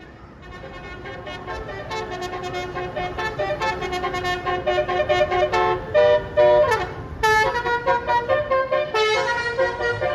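A bus telolet horn, the multi-tone musical horn of an Indonesian bus, playing a quick tune of short changing notes. It grows louder over the first couple of seconds, and there is a falling slide past the middle.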